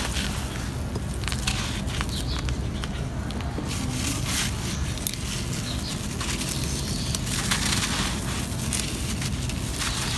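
Hands crumbling dry, gritty moulded blocks of sand and dirt: a continuous run of crisp crunches and crackles as the lumps break apart and loose grit pours down, over a steady low rumble.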